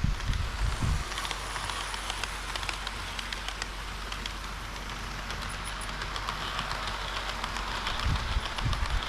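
HO-scale model train running on layout track: a steady crackling rattle of wheels on the rails with many fine clicks. A low rumble fades out about a second in and comes back near the end.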